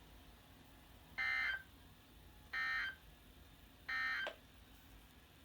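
Emergency Alert System end-of-message data signal: three short, identical bursts of buzzing digital tones, about 1.3 seconds apart, marking the end of the alert.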